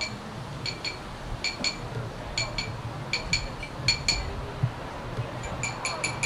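Light clinking of a hard, ringing object struck over and over, in quick pairs about every three-quarters of a second, each strike ringing briefly at the same high pitch. The strikes bunch up faster near the end.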